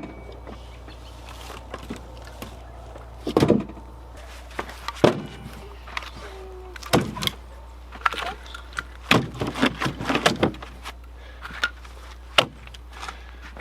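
Irregular knocks and clunks, a dozen or so at uneven intervals, over a steady low hum.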